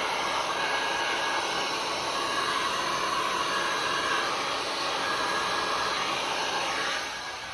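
Heat gun blowing steadily over fresh resin to pop surface bubbles, shut off about seven seconds in.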